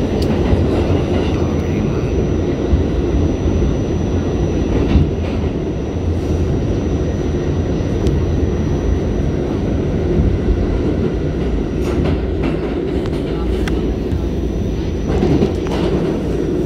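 New York City subway train running through its route, heard from inside the car: a steady, loud rumble of steel wheels on the rails with occasional clicks over rail joints.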